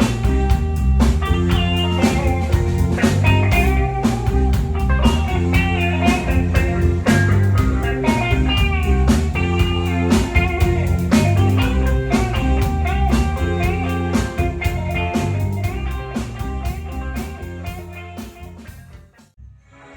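Rock band playing: electric guitar lines over bass and a steady drum kit beat. The playing fades and stops about a second before the end.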